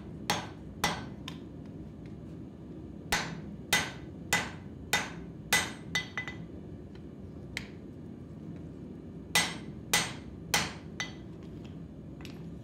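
Hand hammer striking a red-hot steel bar on an anvil while forging an axe. The blows come in three runs: two or three near the start, about six in the middle, and four near the end, close to two blows a second, each with a short ring. A steady low hum runs underneath.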